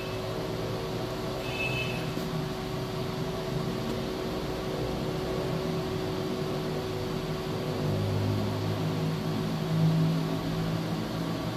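Steady mechanical hum with a constant tone, swelling a little in its low part about eight seconds in.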